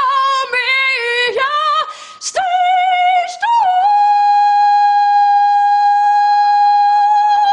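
A high singing voice with no accompaniment: a few short gliding notes, then one long note held steady for about four seconds near the end.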